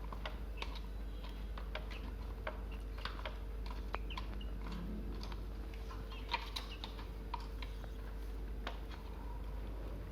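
Young chickens pecking at feed: irregular, quick taps of their beaks striking the food, several a second.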